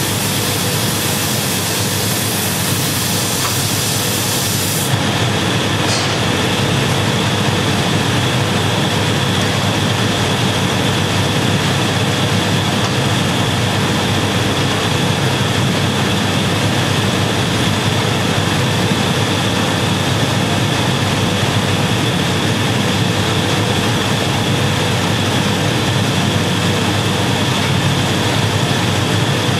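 Steady, loud roar of a glassblowing workshop's gas-fired furnaces and exhaust fans, with a constant whine running through it. A higher hiss in the roar stops about five seconds in.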